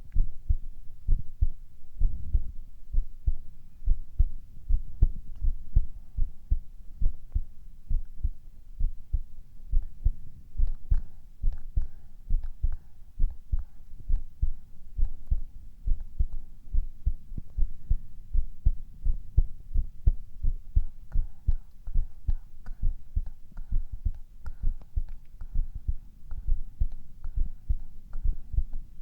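A man's heartbeat, recorded close up, beating in a steady, even rhythm of low thumps.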